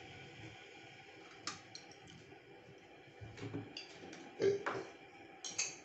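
A few light, scattered clicks and taps of jars, lids and cups being handled and set down on a table.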